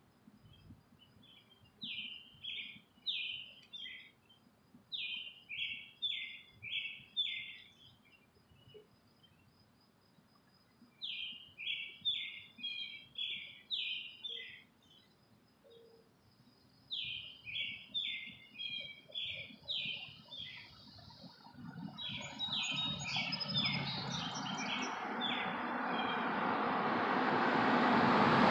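A songbird singing loud songs of five or six quick repeated notes, about five songs a few seconds apart. From about 21 seconds in, the noise of approaching road vehicles rises steadily until it is the loudest sound.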